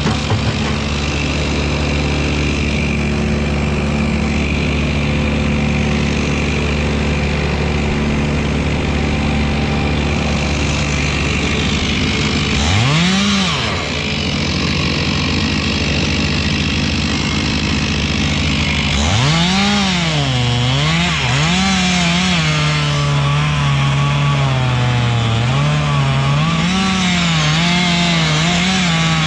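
Chainsaw running and cutting wood. The engine pitch rises and falls once about 13 seconds in, then from about 19 seconds swings up and down repeatedly as the saw is worked through the cut.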